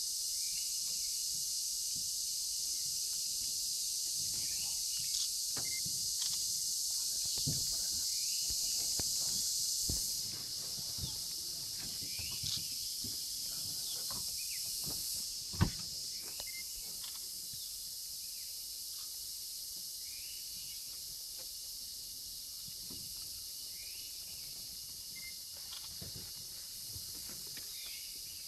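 Steady high-pitched buzzing of forest insects, easing off a little about ten seconds in, with scattered small clicks and one sharp knock about halfway through.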